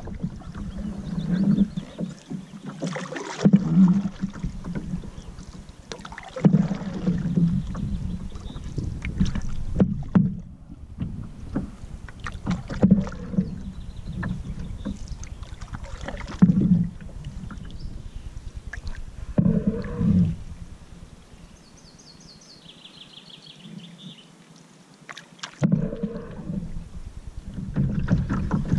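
Canoe paddling: paddle strokes with water splashing every few seconds over the steady wash of river water along the hull of an Old Town Saranac 146 canoe. The sound drops away a little past the middle, then comes back louder near the end.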